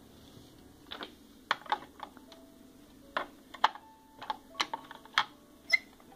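Light clicks and clatters of miniature plastic dollhouse kitchenware being handled and set down inside a small plastic cupboard, including silver-coloured miniature pots. About a dozen irregular sharp taps, a few with a brief ring, the loudest in the second half.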